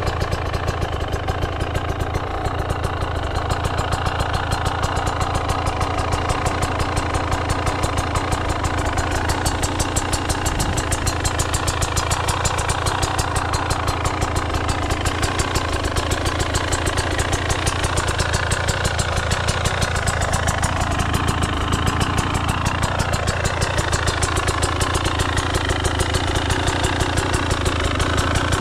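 Husqvarna TE300 Pro's 300 cc two-stroke single-cylinder engine idling steadily on its stand, with an even, rapid beat of firing pulses.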